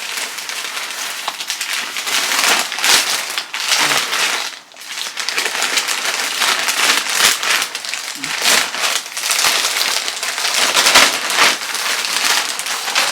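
Packaging crinkling and rustling as it is handled and unwrapped, with many sharp crackles and a brief lull a little under halfway through.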